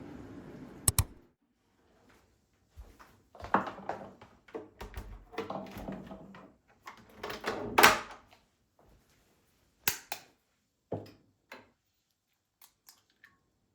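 A steady hum cuts off with a click about a second in, then objects are handled and set down: irregular clattering for several seconds, a few single knocks, and light ticks near the end.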